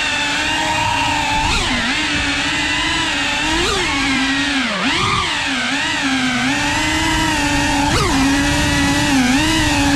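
Cinewhoop FPV drone's brushless motors and ducted propellers whining at a steady pitch, with brief sharp rises and drops in pitch at each throttle change, several times.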